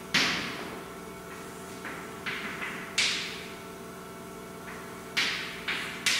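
A series of sharp knocks at irregular intervals, about nine in all, each ringing out briefly in a hard-walled room. The loudest comes right at the start and another about three seconds in.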